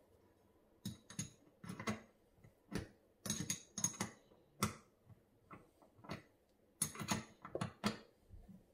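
Irregular metallic clicks and knocks of a small spanner being worked in short strokes on a chrome mixer tap body, tightening the tap's cartridge fitting.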